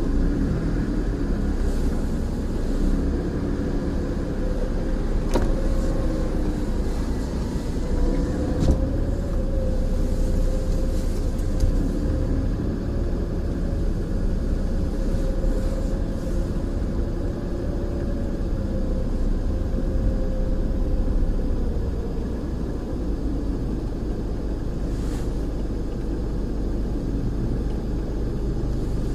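Car moving slowly with its engine running, a steady low rumble with a faint held hum, and a couple of sharp clicks.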